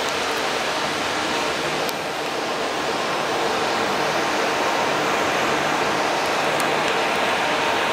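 Steady, even rushing noise with a faint low hum, the constant background of an enclosed exhibit hall; a couple of faint ticks come through it.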